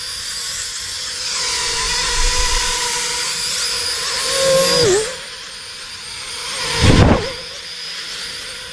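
Small toy quadcopter's motors and propellers whirring with a steady high whine, which dips in pitch and drops off just before halfway. About seven seconds in comes a short, loud rush of noise.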